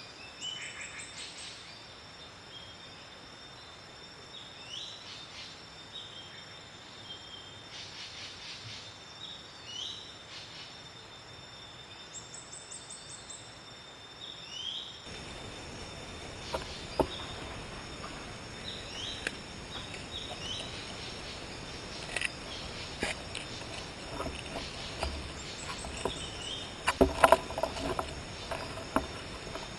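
Tropical forest ambience: a steady high insect drone with repeated short bird chirps and calls. The background grows louder about halfway through, and scattered sharp clicks and knocks follow, clustered near the end.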